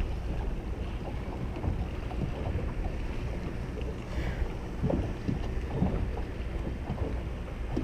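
Wind rumbling on the microphone over open water: a steady low rumble, with a few faint knocks about five and six seconds in.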